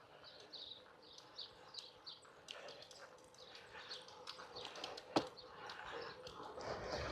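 Faint bird chirping, short high calls repeated about three times a second, over a soft haze of outdoor noise, with one sharp click about five seconds in.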